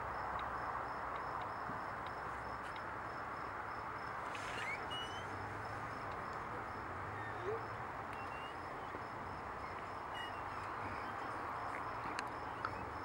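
Steady outdoor night ambience: an even rushing noise with a few faint short chirps and small clicks scattered through it.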